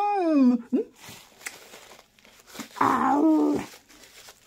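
A woman's wordless hummed 'mmm' sounds while eating: one gliding up and down at the start and another about three seconds in, with faint chewing between.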